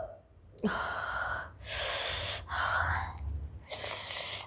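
A woman's hiccup about half a second in, followed by four long, noisy breaths in and out through the mouth.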